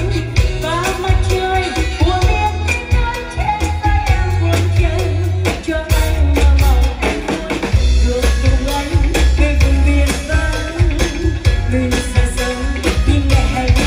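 A woman singing into a microphone with a live band, drum kit and electric bass, amplified through PA loudspeakers and picked up by a phone, with a heavy bass low end.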